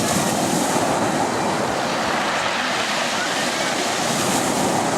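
Sea surf washing on the shore, a steady rush that swells twice, about half a second in and again near the end, with wind buffeting the microphone.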